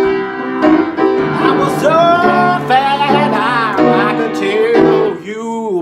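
Upright piano played in sustained chords while a man sings a long wordless line over it, his voice wavering in pitch. Near the end his voice bends in a short curving glide.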